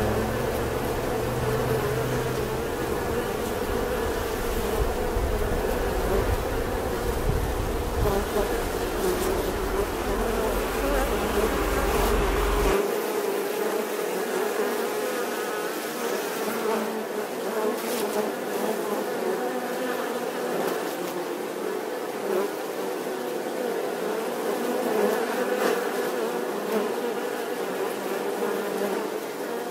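Many honeybees buzzing together in a dense, steady hum. A low rumble underneath stops suddenly about thirteen seconds in.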